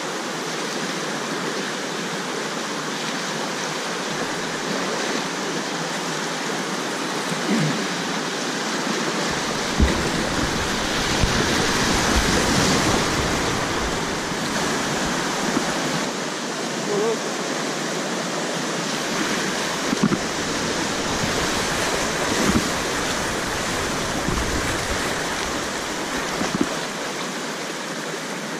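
Whitewater river rapids rushing steadily, heard close at water level from a kayak running them, with a few short dull knocks about ten, twenty and twenty-two seconds in.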